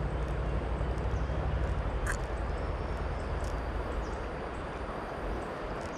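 Steady rush of fast-flowing river water, with a low hum underneath that fades about halfway through and a faint sharp click about two seconds in.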